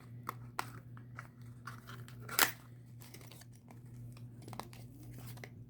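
Packaging being handled and opened by hand: crinkling and tearing with scattered small clicks, and one sharp click about two and a half seconds in.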